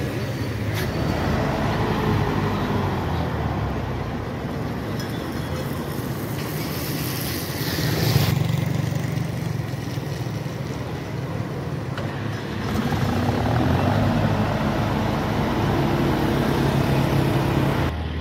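Road traffic: motor vehicle engines running steadily, swelling about eight seconds in as a vehicle passes, and louder again near the end.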